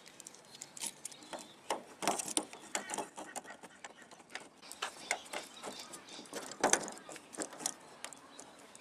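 Irregular clicks, taps and light rattles of a replacement door lock barrel and handle being fitted into a car's front door, with one louder knock about two-thirds of the way through.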